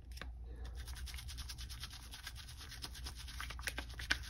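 Wet makeup brush bristles scrubbed briskly over the ridged silicone scrub mat of a Beautyblender solid cleanser: a steady run of fine, quick scratching strokes.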